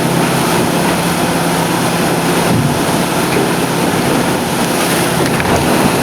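Yamaha F350 5.3 L V8 four-stroke outboard running at low revs with the boat under way, under a steady rush of wind on the microphone and water against the hull.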